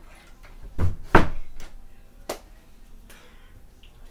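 Two loud thumps close together about a second in, then a sharper knock about a second later and a smaller one near the end.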